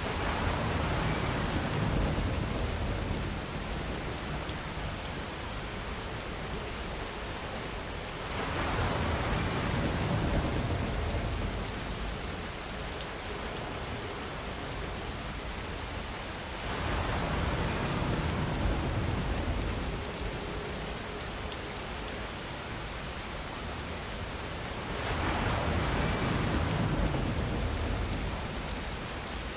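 Steady heavy rain, with a low rumble of distant thunder swelling and fading four times, about every eight seconds.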